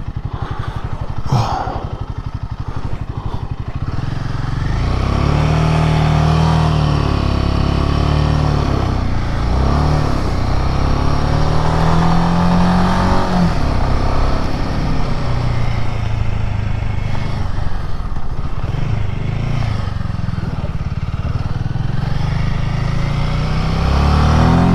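Royal Enfield Himalayan 450's single-cylinder engine under way, its pitch climbing and dropping back several times as it accelerates through the gears, over wind and road noise.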